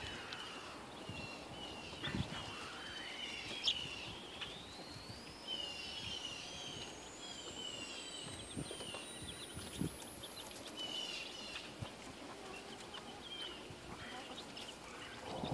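Newly hatched chicks peeping: runs of short, high, falling peeps that keep repeating, with a few soft knocks among them.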